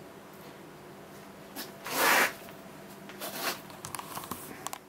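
Handling noise from the handheld camera: clothing rubbing and scuffing close to the microphone, with one loud rustle about two seconds in, then a run of light clicks and scuffs.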